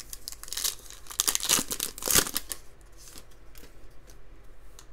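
Foil trading card pack being torn open and crinkled, a burst of ripping and crackling that dies down after about two and a half seconds into a few light ticks.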